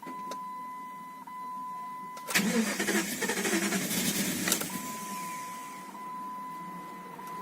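Jeep Grand Cherokee WJ's engine cranking for about two seconds without catching, the no-start fault. Before and after the crank a steady high electronic warning tone sounds from the dash.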